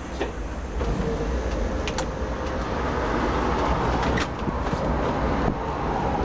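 Electric Sóller tram running along its track, a steady rumble of motors and wheels on the rails, with two sharp clicks about two and four seconds in.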